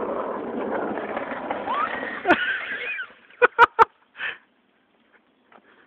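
Skateboard wheels rumbling over a concrete path under a loaded armchair, with a sharp knock a little over two seconds in as it crashes into a bush; the rolling stops about a second later. A few short breathy voice bursts follow.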